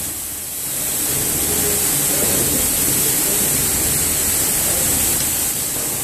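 Automatic carpet washing machine running, its rotating brush discs scrubbing a carpet under water, a steady rushing hiss over a low machine rumble. It is briefly softer in the first half second.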